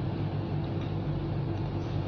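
A steady machine hum with a constant low drone under an even hiss.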